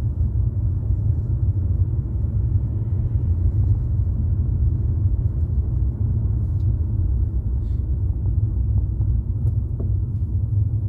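Steady low rumble of a car driving along a city street, engine and road noise heard from inside the moving car.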